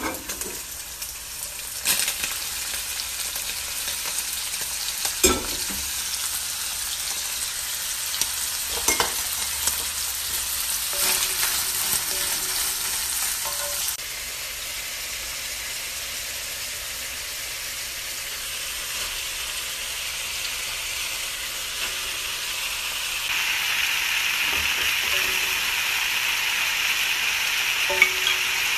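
Stir-frying in a wok over high heat: a steady sizzle of chicken strips, bell peppers and then bok choy in hot oil, with the spatula knocking against the pan now and then. The sizzle changes abruptly twice and is louder and brighter in the last few seconds.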